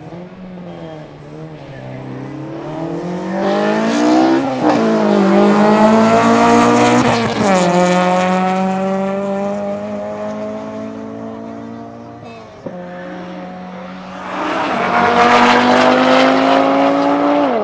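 Car engine revving hard and climbing in pitch during a drag run, with sharp drops at the gear changes about four and a half and seven seconds in, then holding and fading as it pulls away. Near the end a second loud engine climbs in pitch and drops again.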